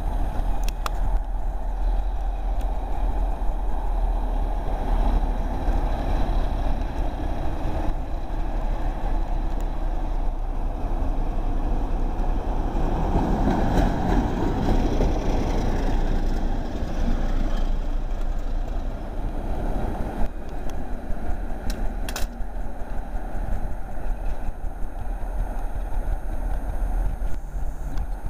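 Class 33 'Crompton' diesel locomotive with a Sulzer engine running past at low speed. Its engine and wheel sound swell as it draws level about halfway through, then fade as it pulls away.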